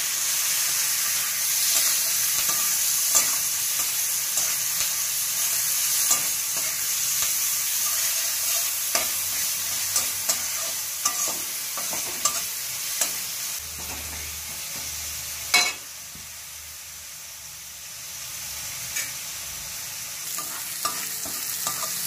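Grated onions sizzling in hot oil in a metal kadhai, stirred with a metal spatula that scrapes and clicks against the pan. The sizzle quietens noticeably about three-quarters of the way through.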